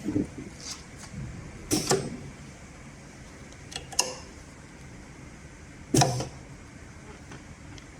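Four separate short knocks and clicks, about two seconds apart, over a faint steady background; no machine is running.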